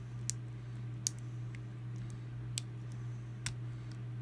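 Pin tumblers of a Master Lock 570 padlock clicking under a half-diamond pick and tension wrench as the pins are worked and set: four sharp, irregularly spaced clicks and a few fainter ones, over a steady low hum.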